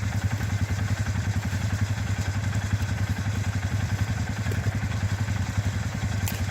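ATV engine idling steadily with a fast, even pulse.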